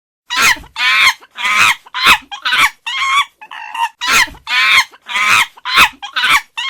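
Chimpanzee calls: a rapid run of about a dozen loud, high, wavering calls, roughly two a second, starting abruptly out of silence.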